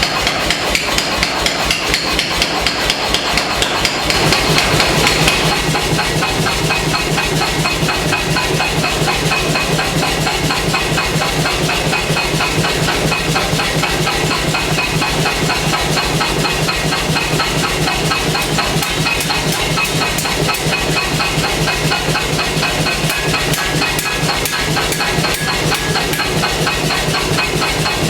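Air hammer pounding hot knife steel in fast, even blows that keep up without a break, with a steady low hum joining about four seconds in.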